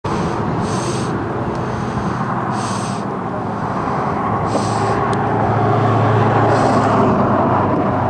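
Steady road-traffic noise with a low vehicle hum that builds about halfway through, and a short high hiss about every two seconds.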